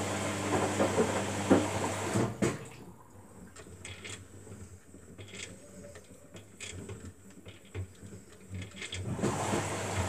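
Washing machine running with a steady motor hum, which stops about two and a half seconds in, leaving a quieter stretch with a few faint clicks and knocks; the hum starts again shortly before the end.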